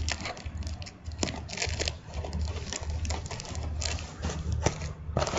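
Scissors cutting packing tape on a cardboard shipping box, with the cardboard scraping and rustling as the box is handled and turned: a run of irregular snips, scratches and light knocks.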